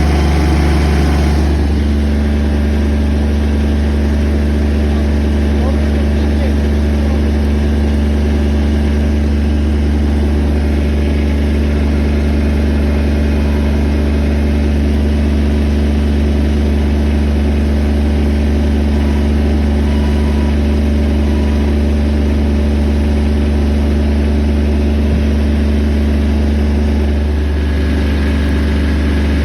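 Heavy log-handling machine's engine running steadily. Its note shifts about a second and a half in and again near the end.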